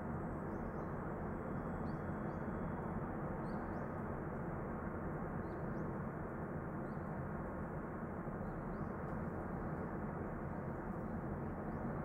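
Steady outdoor rushing background noise, with faint short bird chirps scattered through it about once a second.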